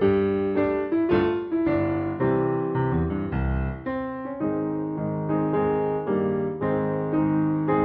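Piano music accompanying a silent film: struck chords and melody notes changing about every half second, each dying away after it is played.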